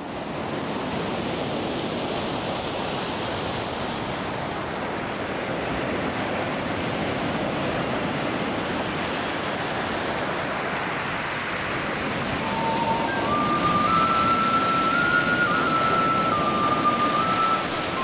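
Steady rush of water, as of surf or falling water. About two-thirds of the way through, a simple tune of held single notes comes in over it.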